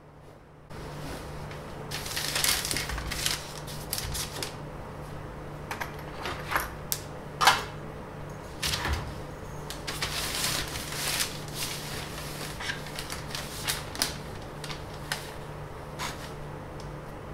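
Irregular clicks, taps and knocks of drawing tools (a compass, rulers, a pencil) being handled and set down on paper on a workbench, over a steady low hum. The sharpest knock comes about seven and a half seconds in.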